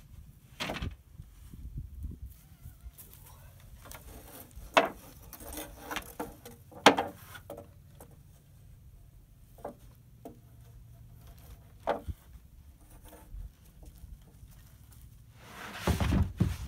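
Thin wooden sticker strips and rough-sawn boards being set down on a lumber stack: scattered light wooden clacks and knocks, the sharpest about seven seconds in, then a longer, louder run of knocking near the end as a board is laid on.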